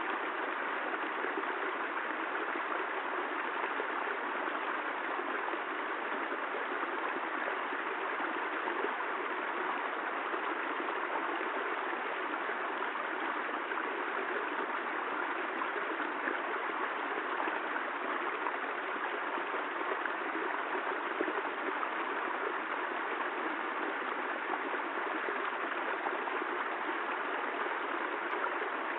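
Steady, even rush of water, with no thunder or other events.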